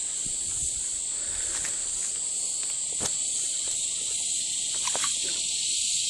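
Steady high-pitched drone of an insect chorus, with a few faint clicks.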